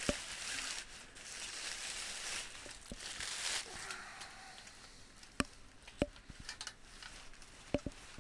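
Hands-on dismantling noise from a steel-frame canopy tent: rustling and scraping for about the first four seconds, then a few sharp clinks, each with a short ring, spaced irregularly.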